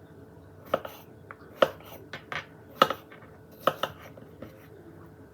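Kitchenware clinking: short sharp knocks of dishes and utensils, often in pairs, about once a second.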